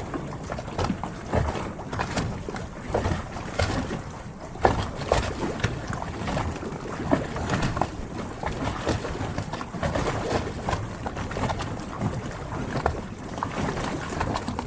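Harbour water lapping and splashing against the hulls of moored yachts in small, irregular slaps.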